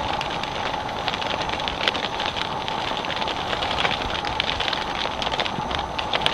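Many bats fluttering and scrabbling against the clear plastic liner of a harp trap's catch bag: a dense, steady crackling patter of wings on plastic.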